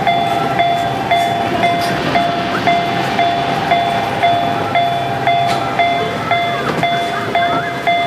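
Miniature Japanese level-crossing signal's electronic warning bell sounding "kan-kan" through its horn loudspeaker, a steady ringing tone repeated about twice a second.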